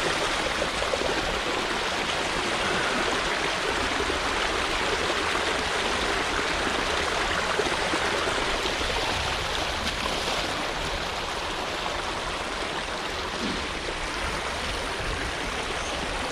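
Rain-swollen creek water rushing steadily over a flooded beaver dam.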